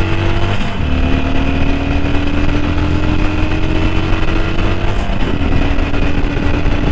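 Harley-Davidson Iron 883's air-cooled V-twin engine accelerating at full throttle, its pitch climbing steadily. It drops abruptly at upshifts about a second in and about five seconds in, then climbs again each time.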